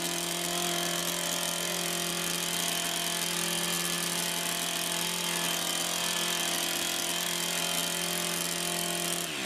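Small two-stroke engine of a STIHL KombiSystem power head running steadily at high speed. Its pitch shifts suddenly near the end.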